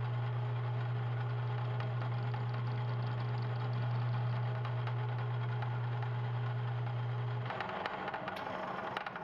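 Jet BD-1340-R metal lathe running with a steady low hum while its HSS bit faces the end of a square 4140 steel block held in the four-jaw chuck. About seven and a half seconds in, the hum cuts off and a looser rattle with a few clicks carries on as the spindle coasts.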